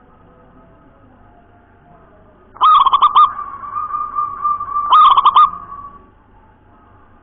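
Zebra dove (perkutut) singing its cooing song. About two and a half seconds in comes a quick run of notes, then a held note, then a second quick run near five seconds, fading out a second later.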